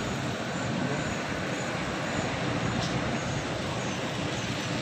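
Intercity coach's diesel engine pulling away from a roadside stop and driving closer, a steady rumble mixed with road noise.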